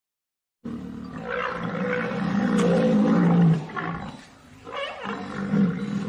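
Rhinoceros calling: a low call lasting about three seconds, then after a short pause a second, shorter call.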